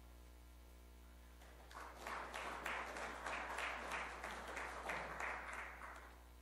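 Audience applauding, starting about two seconds in and dying away near the end, over a steady low electrical hum.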